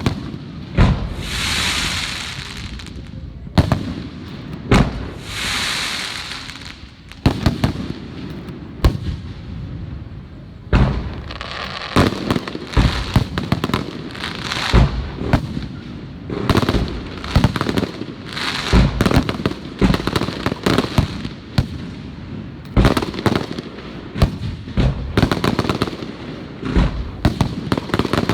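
Aerial fireworks display: shells bursting with sharp bangs and booms, with two long hissing swells in the first six seconds. From about twelve seconds in, the bursts come thick and fast in a dense barrage.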